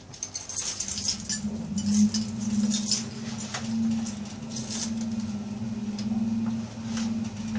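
Passenger lift in motion: a steady low motor hum with light scattered clicks and rattles from the car, the hum setting in a second and a half in.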